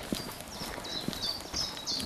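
Footsteps on a paved path, about two steps a second, with short high chirps over them.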